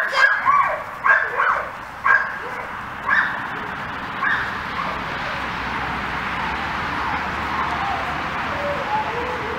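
Border collie barking at a protection-training helper, about six sharp barks spaced half a second to a second apart over the first four seconds or so. After that the barking stops and a steady background hiss remains.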